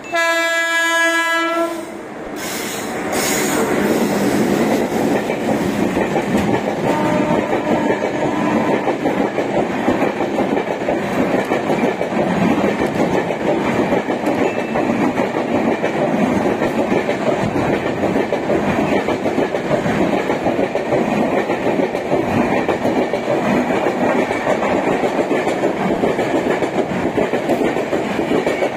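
A WAP-7 electric locomotive sounds its horn in one blast of about two seconds, then the express runs through the station at speed without stopping: a loud, steady rush of coaches and wheels rattling over the rails as the train passes close by.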